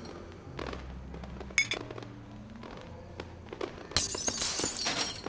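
Crashing and breaking sounds over music: a sharp crack about a second and a half in, then a longer burst of crashing near the end.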